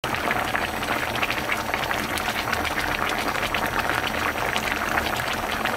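Mackerel and aged-kimchi braise bubbling steadily in its red sauce: a dense, even crackle of small popping bubbles.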